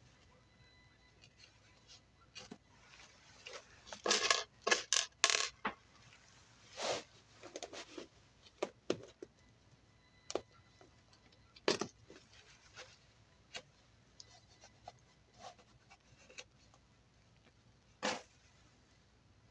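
Quiet handling sounds of stick pins being pushed into a crocheted doily to stretch it for blocking: small clicks and the rustle of the plastic sheet beneath, in scattered short bursts, busiest about four to five seconds in.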